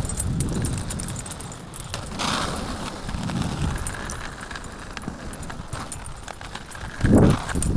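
Inline skate wheels rolling over rough asphalt, a low rumble that swells with each stride, loudest near the end.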